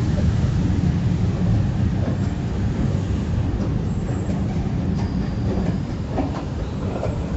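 Escalator running with a steady low mechanical rumble. A few faint clicks and a thin high squeak come in over the second half.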